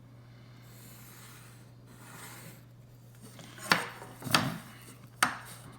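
Pencil drawing lines on paper, a dry scratching rub in two strokes, followed by three sharp taps or clicks, likely a ruler or pencil knocking on the drawing surface. A steady low electrical hum underlies it.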